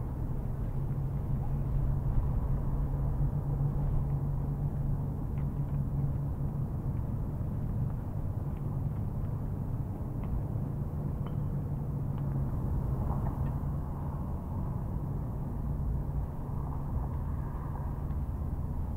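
Steady low outdoor rumble with a low hum, like distant traffic, and a few faint clicks.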